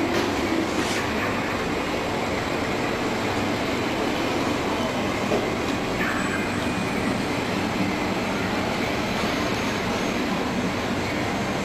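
Steady rushing background noise with a low rumble underneath, unbroken throughout; a few faint ticks near the start and about six seconds in.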